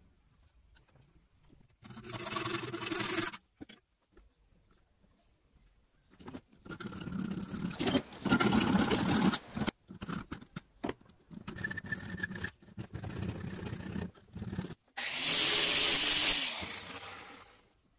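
Saw strokes cutting a small knife-handle block clamped in a bench vise, heard as several separate stretches of rasping, the last the loudest, with abrupt gaps between them.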